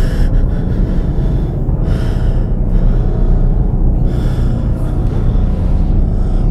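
A person breathing heavily and audibly, roughly one breath every two seconds, over a constant low rumbling drone.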